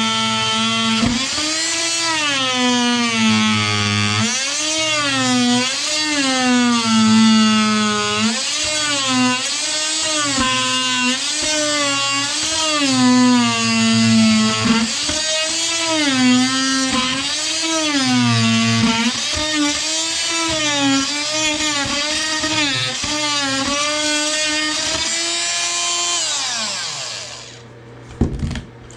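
Power tool motor whining, its speed swelling up and down again and again as the trigger or load changes, then winding down and stopping near the end.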